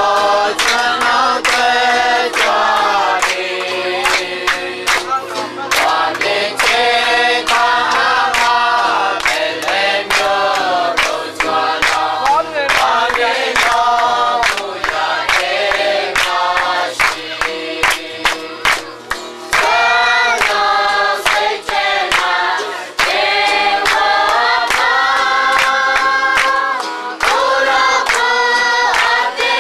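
Church congregation singing a hymn together, men's and women's voices, with sharp beats recurring throughout.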